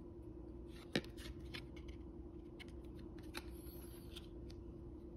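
A stack of Panini Diamond Kings baseball cards handled by hand as the top card is moved to the back: a sharp card snap about a second in, then light clicks and the rustle of card edges sliding over one another.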